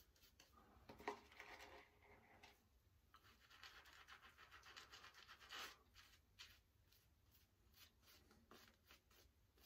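Faint swishing of a shaving brush working soap lather onto the face, in uneven strokes.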